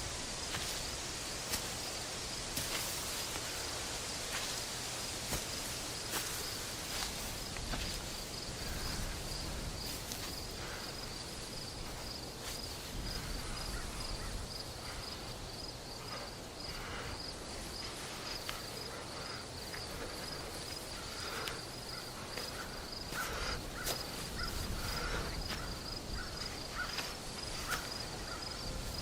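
Crickets chirping steadily in a rapid, even pulse over a soft background hiss, with occasional faint clicks.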